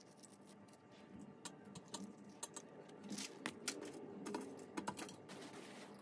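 Faint, irregular clicks and taps of hands handling small craft pieces (foam petals, flower stamens) and setting them down on a glass tabletop. The taps are most frequent about halfway through.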